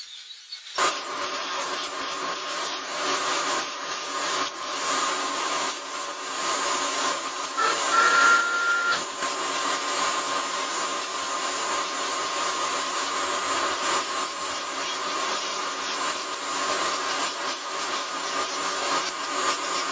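A motor-driven tool working a brass part: a steady hissing grind with a constant motor whine underneath, starting abruptly about a second in.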